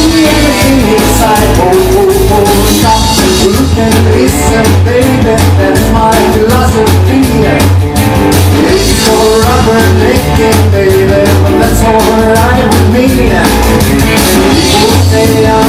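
Rock and roll record playing with a driving bass, guitar and singing.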